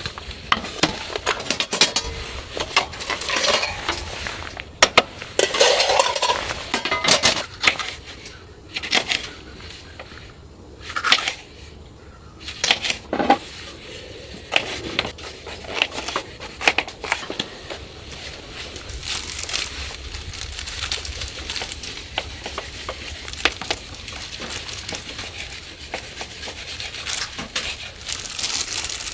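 Cookware and utensils being handled, with irregular clinks and knocks that are thickest in the first half and thin out later.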